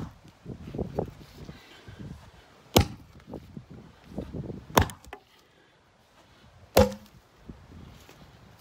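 Axe chopping into an old weathered timber beam on the ground: four sharp strikes about two seconds apart, with shuffling footsteps on grass between them. By the last strike the beam has split in two.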